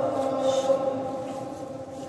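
A voice chanting a long, steady held note of Islamic chant that slowly fades away near the end.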